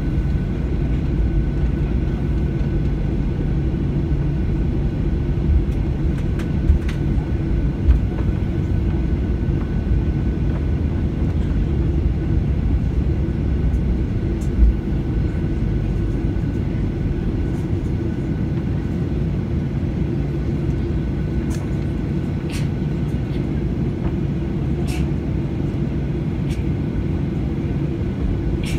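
Cabin noise inside a Boeing 737 taxiing: a steady low rumble of the jet engines at taxi power and the airliner rolling along the taxiway. A faint steady whine fades out about halfway, and there are a few light knocks.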